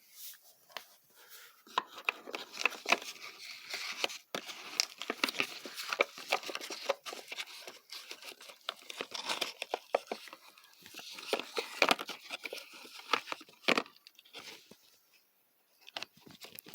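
Hands rummaging and handling small objects, with rustling and many quick irregular clicks and taps, dying away near the end.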